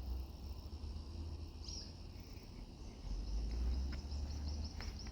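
Insects trilling steadily in a high register, the chirps coming quickly and evenly in the second half, over a low rumble.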